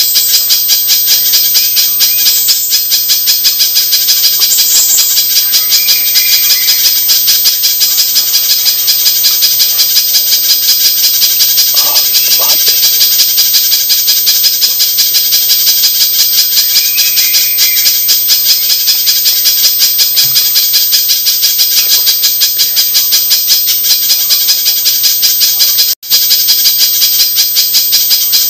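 Spiderhunter (pijantung) calls repeated rapidly and without a break: a dense, high chattering played as a bird-trapping lure recording. It cuts out for a split second near the end.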